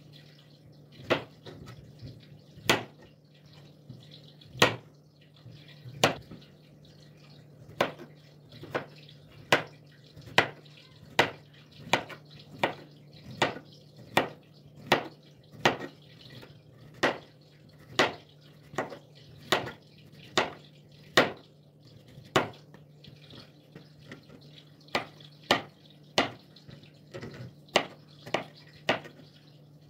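Kitchen knife slicing through zucchini and knocking on a plastic cutting board: a series of sharp chops, one or two a second, with a short pause about two-thirds of the way through and quicker chops near the end.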